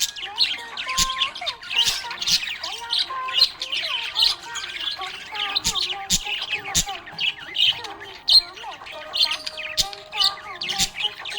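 Budgerigar chattering: a fast, unbroken stream of chirps and warbling pitch slides mixed with short, sharp squawks.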